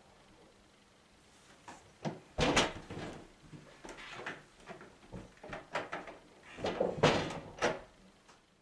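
Wooden interior door being handled: a series of clunks and knocks, loudest about two and a half seconds in and again about seven seconds in.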